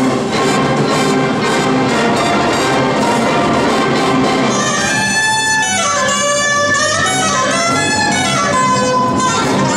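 High school jazz band playing a Latin jazz tune, with saxophones and brass together. About halfway through, a solo alto saxophone comes forward with fast rising and falling runs over the band.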